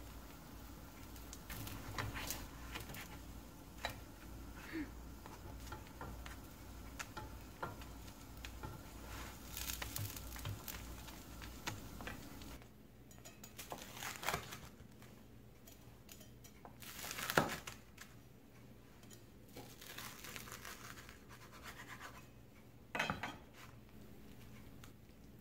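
Kitchen handling sounds: light clicks and rustles over a steady low hum while toppings are sprinkled onto a tortilla in a frying pan, then, after a change about 12 seconds in, scattered scrapes and a few sharp knocks, the loudest about 17 seconds in, as the folded tortilla is handled on a wooden cutting board.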